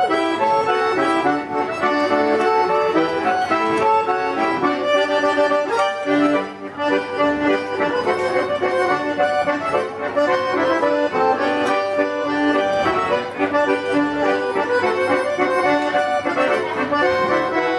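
Accordion music: a quick, lively traditional folk tune with fast-moving melody notes, played without a break.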